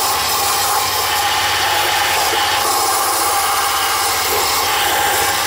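Handheld power tool motor running steadily at constant speed, with a steady whine and no change in load.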